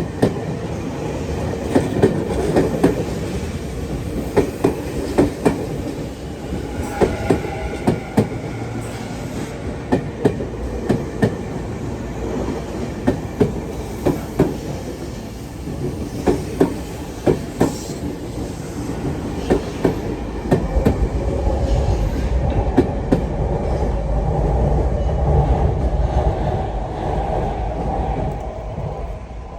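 Electric commuter train on the Tokyu Meguro Line passing close by at a level crossing, its wheels clacking over rail joints in quick pairs of beats. From about twenty seconds in a deeper rumble builds, then fades near the end.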